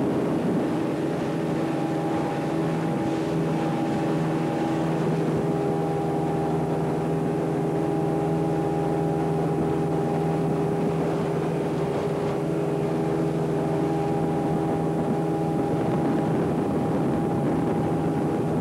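Motorboat engine running steadily at speed, a constant drone over a rush of noise, heard from on board the boat.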